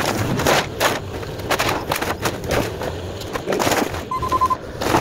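Wooden garage roof and framing cracking, splintering and crashing as a mini excavator pulls them down, with irregular sharp cracks over the excavator's steady engine. A quick run of high beeps about four seconds in.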